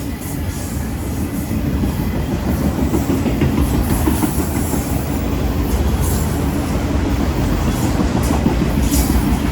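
CSX manifest freight train rolling past, with a steady rumble of wheels on rail and a clickety-clack over the rail joints. It grows louder over the first few seconds, then holds steady.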